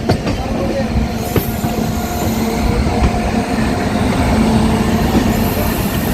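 Local electric train running along the track: a loud, steady rumble and rattle of wheels on rail, with a few sharp clicks.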